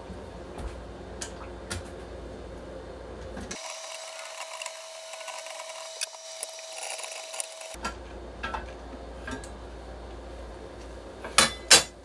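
Small metal clicks and scrapes of a screwdriver working the screws as the vertical arms of a TV wall-mount bracket are taken off, with two loud metal knocks near the end as the arms come away.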